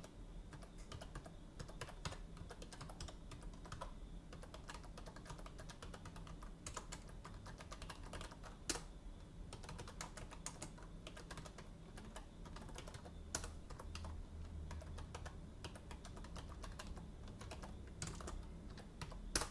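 Faint typing on a computer keyboard: quick runs of key clicks with short pauses between them, over a steady low hum.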